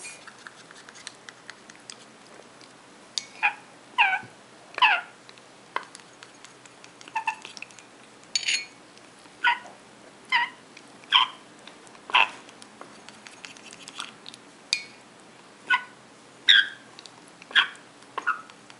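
African grey parrot chick, eight weeks old, giving short squeaky food-begging calls while it is spoon-fed formula, starting about three seconds in and repeating roughly once a second.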